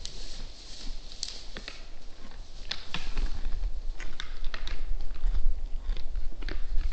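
Red deer stag eating at a feeding spot: irregular crunching and clicking as feed is bitten and chewed, coming thicker after a couple of seconds. A low rumble runs underneath.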